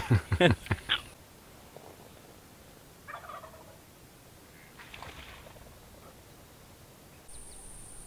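A wild turkey gobbling once, a loud quick rattle of falling notes lasting about a second at the start. Faint scattered sounds follow, and a steady high insect drone sets in near the end.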